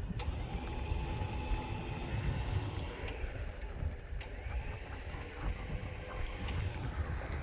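Electric 12,000 lb Badland Apex winch motor running under load, reeling in its line to drag a car that is not really stuck, with a steady whine over a low rumble.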